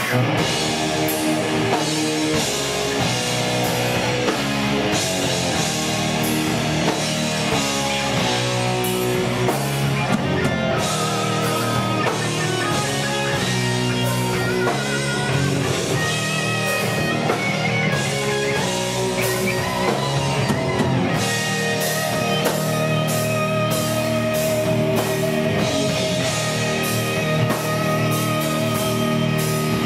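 Heavy metal band playing live, kicking in suddenly at the start: distorted electric guitars over a pounding drum kit in a loud instrumental passage, without vocals.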